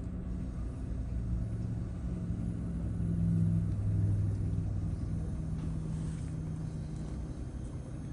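2013 Chevrolet Silverado 1500's 5.3-litre V8 running at idle with a knock ("golpeteo"), the kind of noise a cracked flywheel makes, which the customer had feared.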